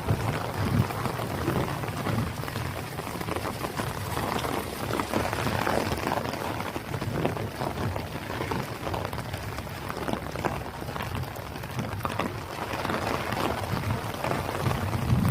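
Heavy rain falling steadily, a dense patter of many close raindrop impacts over a constant hiss.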